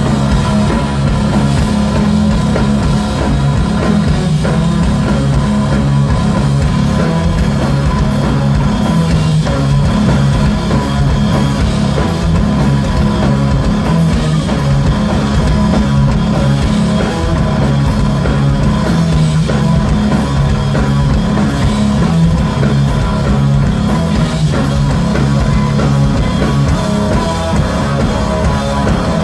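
Stoner rock played live by a guitar, bass and drums trio: electric guitar, bass guitar and drum kit, loud and dense with a heavy, steady low end.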